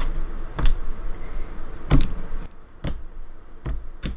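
Slime being handled and pressed in the hands, giving a few sharp clicks and pops about a second apart.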